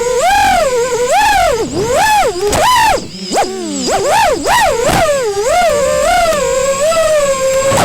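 FPV quadcopter's brushless motors whining through the onboard VTX microphone, the pitch swooping up and down again and again with the throttle, and falling sharply at the very end.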